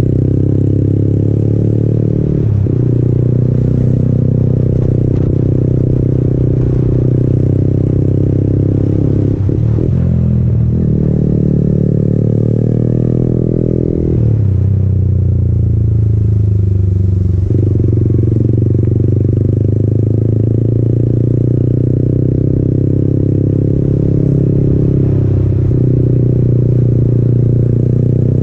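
Yamaha MT-15's 155 cc single-cylinder engine running under way through an aftermarket Akrapovic exhaust. Its pitch rises and falls several times as the throttle opens and closes, with a marked dip and climb about ten seconds in.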